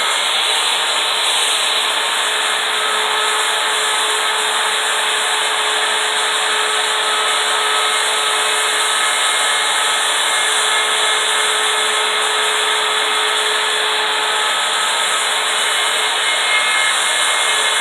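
Handheld router fitted with a small CNC carving bit in a collet reducer, running steadily while cutting letters into a wooden sign: a constant motor whine over the rasp of the bit in the wood.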